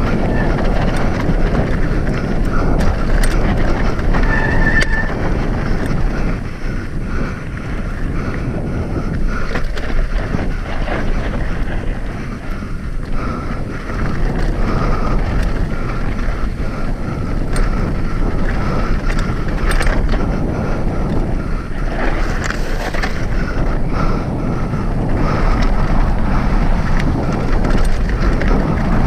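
Wind buffeting the microphone over the rattle, clicks and knocks of a hardtail mountain bike riding down rocky, loose ground.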